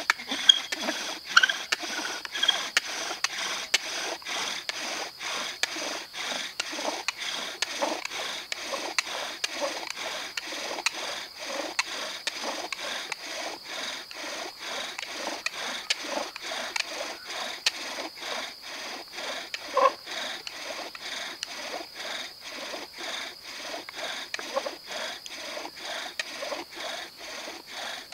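Bow drill being worked for a friction fire: the wooden spindle rubbing and rasping in the fireboard socket with each stroke of the bow, in an even rhythm of about two strokes a second.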